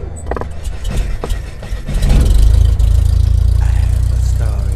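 Cinematic intro sound effects: a few sharp crackling clicks, then a deep low drone that swells up about two seconds in and holds steady.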